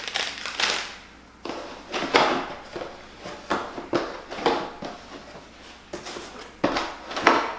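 Plastic bag and cardboard packaging rustling and scraping as they are handled, in a string of short rustles with a sharper knock about two-thirds of the way through.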